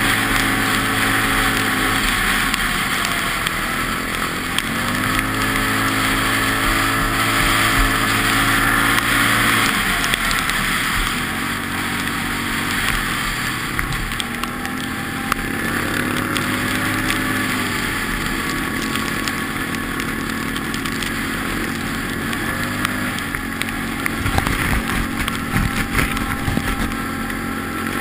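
Quad bike (ATV) engine running under way, its note rising and levelling off several times as the rider speeds up, over a steady rush of wind on the microphone. A few thumps near the end.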